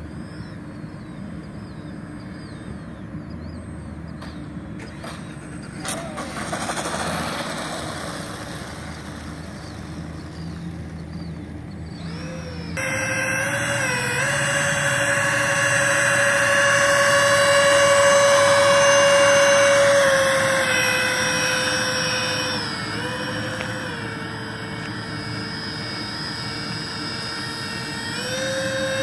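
Electric ducted fans of a radio-controlled Airbus A330-600 model airliner whining on the ground, a steady whine that drops in pitch partway through and rises again near the end as the throttle changes. Before that, the model is faint and distant against outdoor noise.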